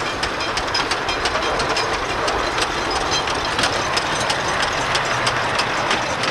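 10¼-inch gauge miniature locomotive running on its track with a small guard's van in tow: a steady running noise with many short, sharp clicks from the wheels passing over the rail joints.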